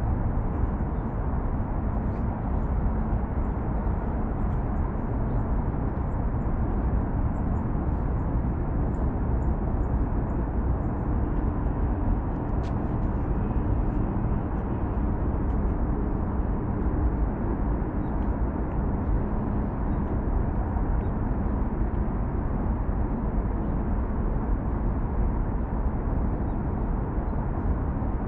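Steady, even rumble of distant road traffic on a river bridge, with no separate events standing out.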